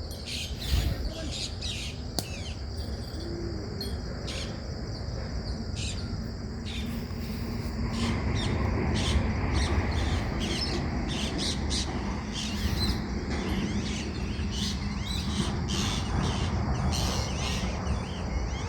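Birds chirping with many short, quick calls over a steady high-pitched insect drone, with a low rumbling background noise that grows louder about halfway through.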